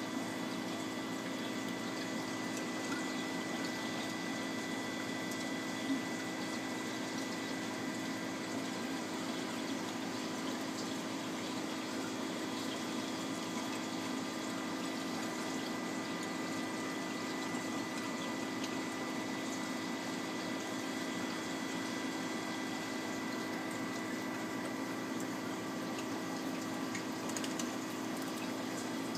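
Steady hum of reef-aquarium pumps with water circulating, a constant noisy wash carrying several even tones, including a thin high whine.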